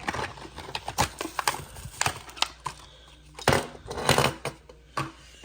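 Hot Wheels blister pack being opened by hand: irregular crackling of stiff plastic and card, with sharp cracks scattered through and a cluster of louder ones about three and a half seconds in.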